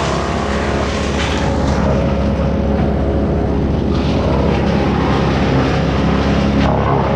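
A small gasoline engine running steadily at high speed on tree-removal equipment, with a few brief scratchy bursts over it.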